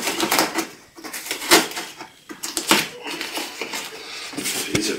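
Long cardboard shipping box being handled and turned: irregular knocks, taps and scrapes of cardboard and packing tape, the sharpest knock about a second and a half in.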